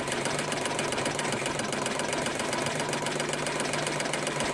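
Schiffli embroidery machine running with a steady, fast, even clatter.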